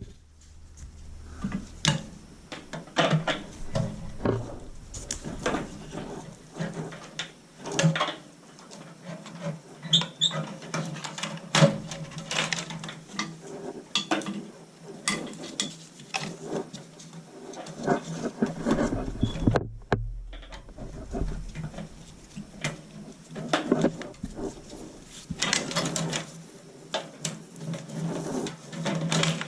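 Irregular clicks, taps and small knocks of hands handling tools and metal parts during a repair, with a faint steady hum underneath.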